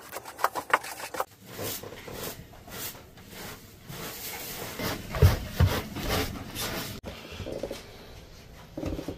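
Bristle broom sweeping debris across carpeted stair treads, a run of quick scratchy brush strokes. Two dull thumps a little past the middle.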